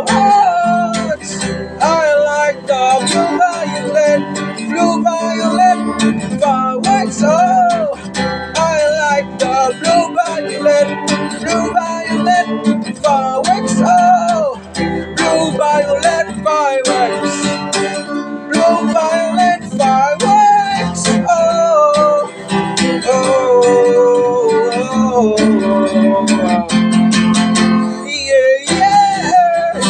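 Music: strummed acoustic guitar under a gliding, bending melody line, with no words.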